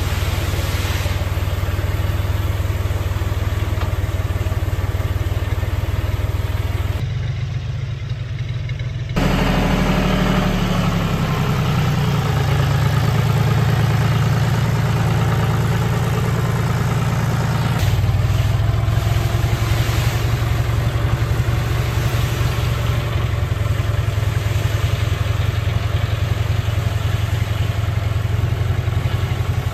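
Tractor engine running at idle with a steady low hum, its note shifting briefly about a third of the way in, over the hiss of threshed rice grain pouring from a bulk bag onto a drying net.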